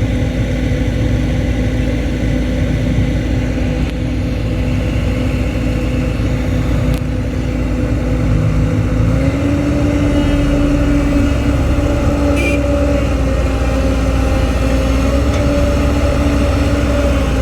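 Excavator's diesel engine running steadily under work, its pitch rising a little about nine seconds in.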